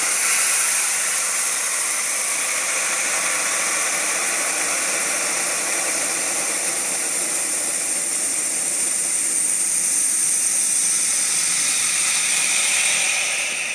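Compressed air hissing steadily out of a Dewalt D55146 air compressor, dying away near the end as the pressure falls.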